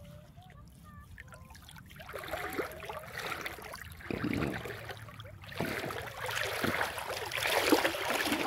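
Water sloshing, trickling and splashing as a wet cast net is gathered and lifted out of shallow water and a person wades through it. The splashing starts about two seconds in and gets louder near the end.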